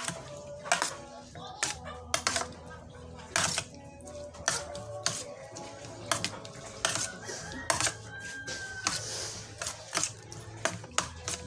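Metal spoon clinking and scraping against a stainless steel tray as a chopped food mix is stirred and tossed, in irregular sharp clicks about once a second.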